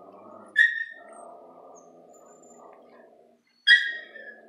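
A dog giving two short, high-pitched yelps about three seconds apart, over a faint steady background din.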